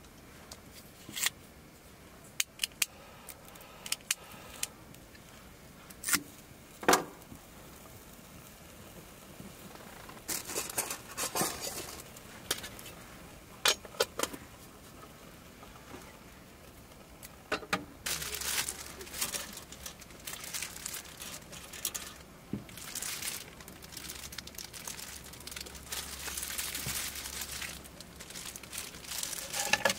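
Hands handling camp cooking gear: a few sharp metallic clicks and taps of utensils set down and picked up, then from about 18 seconds in a long stretch of rustling and crinkling, like a plastic food wrapper being handled.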